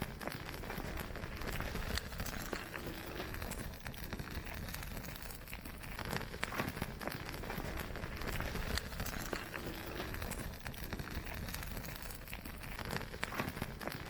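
Small campfire of cassiope ('petrol grass') crackling, with many sharp irregular pops over a steady hiss.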